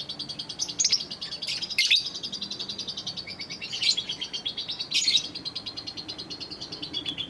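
Lovebird singing a long unbroken chatter of rapid high notes, with louder sharp calls standing out about four times.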